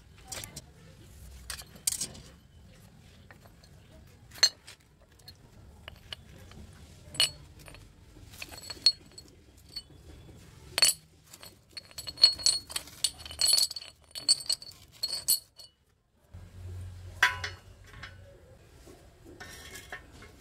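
Steel pieces and hand tools clinking and knocking as they are handled and set down on a concrete floor, a series of separate sharp strokes with a quick run of ringing metallic clinks in the middle.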